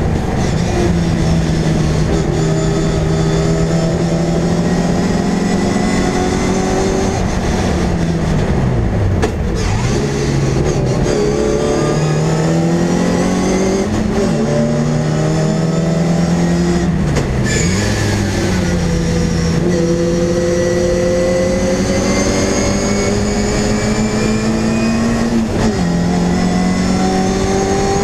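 MG Midget race car's four-cylinder engine at racing speed, heard from inside the cockpit. Its note climbs steadily for several seconds at a time, then falls sharply three or four times as the car slows and changes gear for corners.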